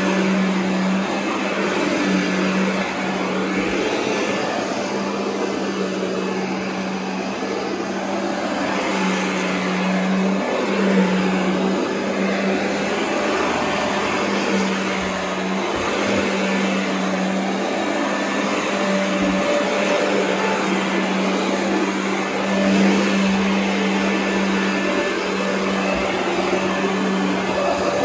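Royal upright vacuum cleaner running steadily as it is pushed back and forth over carpet: a constant motor hum under a rushing of air and brush roll.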